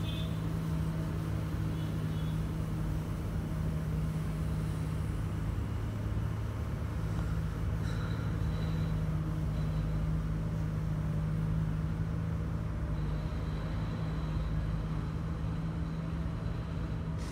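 MCV Evoseti-bodied double-decker bus standing with its drivetrain running, a steady low hum heard from the upper deck.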